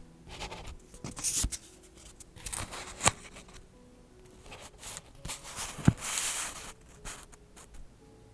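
Paper rustling and sliding as journal pieces are handled, with a few sharp taps or clicks, the loudest about six seconds in, over soft background music.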